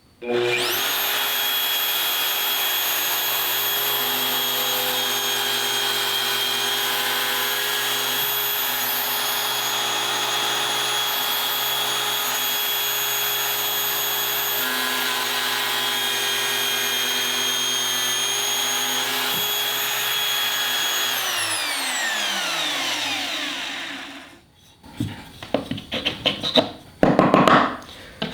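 An electric power tool's motor starts, runs at a steady high whine for about twenty seconds, then is switched off and spins down, its pitch falling for a couple of seconds until it stops. Near the end come a few clattering knocks of wood and tools being handled.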